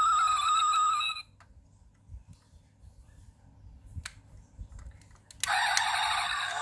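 The built-in sound module of a diecast model car plays its sound effect through a tiny speaker, thin and without bass. It cuts off about a second in and starts again about a second before the end. In the quiet between, there are a few small clicks as the model is handled.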